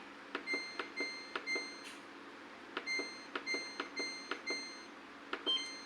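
Samsung Ecobubble top-load washing machine's control panel beeping as its program buttons are pressed. There are two runs of short, identical beeps, a few a second, each with a light tap, then one higher beep near the end.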